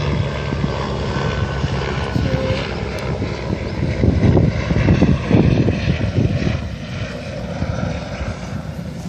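Wind buffeting the microphone: a loud, uneven low rumble that gusts stronger around the middle.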